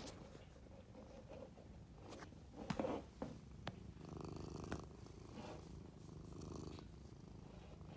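Domestic cat purring steadily, a low rapid pulsing rumble, with a few short clicks about three seconds in.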